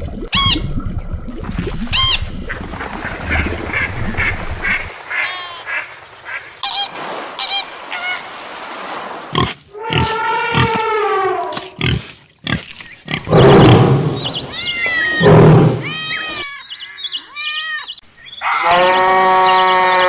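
A series of different animal calls, cut one after another: short repeated cries, then a long call near the middle that falls in pitch, and a held call near the end.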